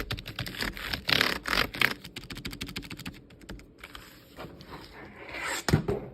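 Typing on a soft-touch full-sized wireless keyboard: rapid, fairly muted key clicks for about the first three and a half seconds. Then scraping and handling noise with one sharp knock near the end.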